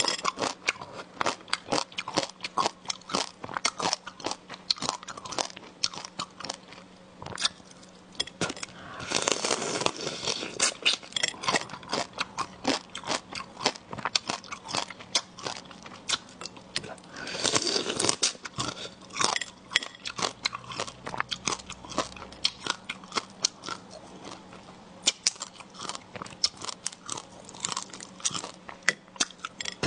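Close-miked crunching and chewing of small marinated crabs eaten whole, shell and all: rapid crackling clicks of shell breaking between the teeth, with denser bursts of crunching about a third of the way in and again a little past halfway.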